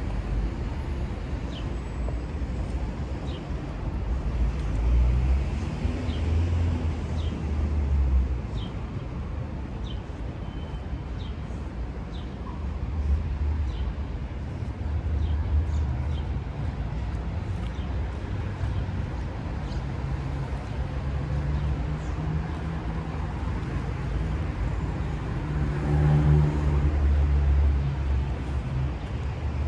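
Street traffic on a city road: cars passing, heard as a low rumble that swells and fades several times, loudest near the end.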